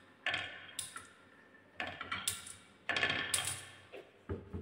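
Glass marbles rolling down a wooden marble run and clacking into a line of marbles queued against a wooden stop block: bursts of sharp clicks about half a second to a second apart, then a few softer knocks near the end.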